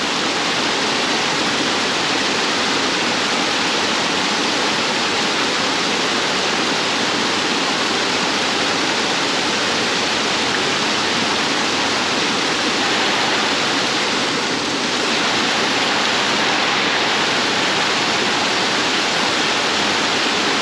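Steady rush of creek water pouring over a small waterfall and rocks.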